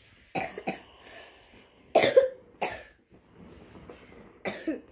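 A person coughing several times in short bursts, the loudest about two seconds in.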